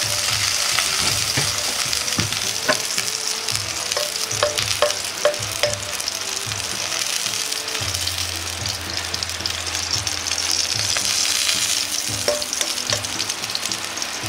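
Oil sizzling in a hot nonstick frying pan as excess fat drains and drips from a batch of pan-fried yakisoba noodles, a steady high hiss with several light ticks and taps.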